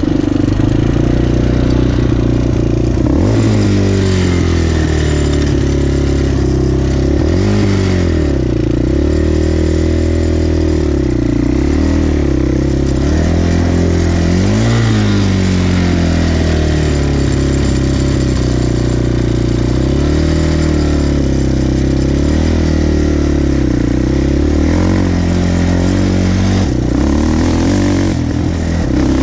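Quad bike (ATV) engine under way on a dirt track, revving up and dropping back again and again as the rider accelerates and eases off, with a steadier stretch midway.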